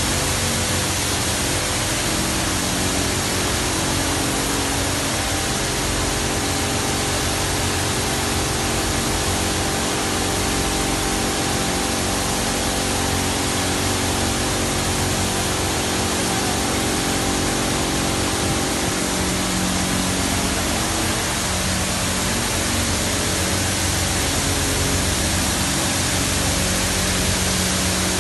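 Touchless automatic car wash machine blasting high-pressure water over a car as its gantry arm moves around it: a steady hiss of spray with a low hum underneath.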